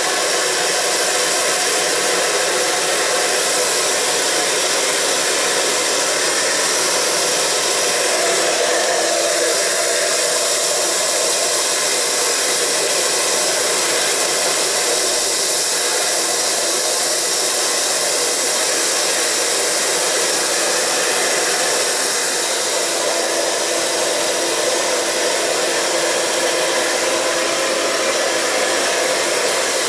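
Handheld hair dryer running steadily, blowing air while hair is blow-dried; its sound dips slightly about two-thirds of the way through.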